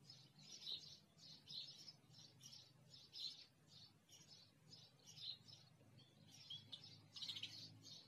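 House sparrows chirping faintly in a steady run of short chirps, about two or three a second, over a low steady hum.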